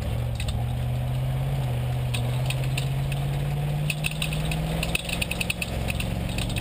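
Lexus LX570 race truck's V8 engine heard from inside the cabin, pulling under load with its pitch climbing steadily as the truck gathers speed, then holding. From about four seconds in, rapid clicking and rattling joins the engine.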